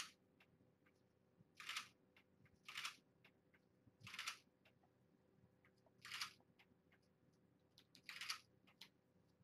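Camera shutter firing six times, faintly, one short click every one to two seconds as photos are taken.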